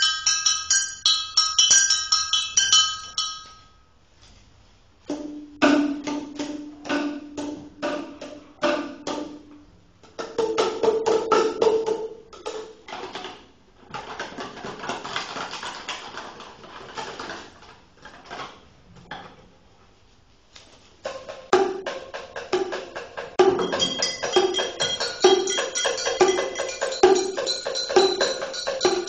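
Percussion music in several passages: first a few seconds of chiming, bell-like tones, then a short pause. Separate hollow, pitched knocks follow, then a stretch of rattling. From about two-thirds through, a steady beat of pitched knocks comes in, with ringing tones over it.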